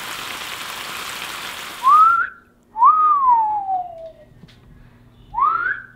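Walleye fillet sizzling in a frying pan, stopping abruptly about two seconds in. Then a person whistles twice, each time a short rising note followed by a long falling one.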